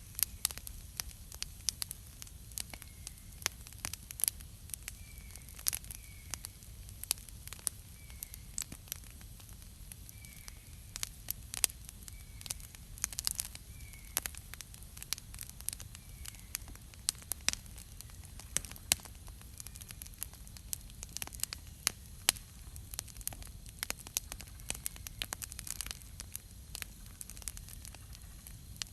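Wood campfire burning, with frequent sharp, irregular pops and crackles over a steady low hiss. A faint short bird chirp repeats every second or two in the background.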